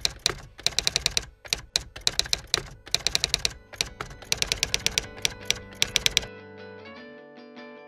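Typewriter keys clacking in quick runs of strokes with short gaps between them. They stop about six seconds in, and held musical notes take over.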